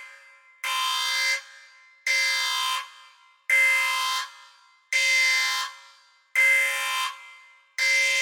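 Spaceship alarm sound effect: a steady alarm tone sounding in blasts of about two-thirds of a second, repeating about every second and a half, six times here. Each blast trails off in an echo before the next.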